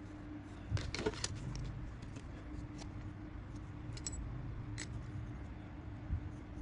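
Pencil-and-ruler handling sounds on a sheet of paper: a short cluster of rustles and clicks about a second in, likely the clear plastic ruler being moved off the paper, then a few light taps as the pencil draws. A faint steady hum runs underneath.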